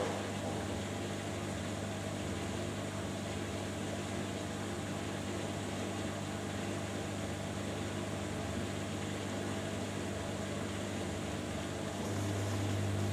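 Washing machines running mid-cycle with a steady motor hum, which gets louder about twelve seconds in as the Hoover Dynamic Next DXA610IW3 starts its first interim spin.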